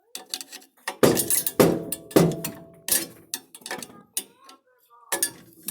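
Metal parts and tools clanking: about half a dozen sharp metallic knocks, a few with a short ring, the loudest three coming about a second in and spaced roughly half a second apart.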